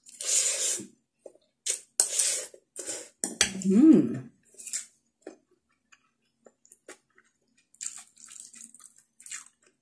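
A person slurping up noodles, several loud wet sucks in the first three seconds or so, then a short rising hummed "mm" and quieter wet chewing and mouth clicks.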